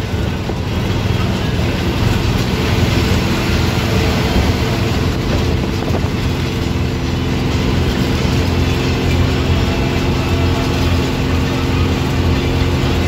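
Intercity coach's engine running steadily at speed, with road and wind noise, heard from inside the cabin behind the driver.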